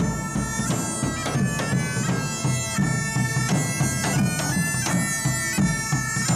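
Bagpipe music: loud bagpipes playing a melody of held notes over their steady drone, with a regular low beat underneath.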